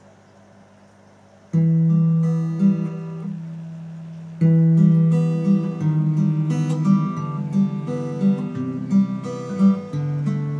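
Acoustic guitar: a chord struck about a second and a half in and left to ring, a second chord about three seconds later, then a steady fingerpicked arpeggio pattern.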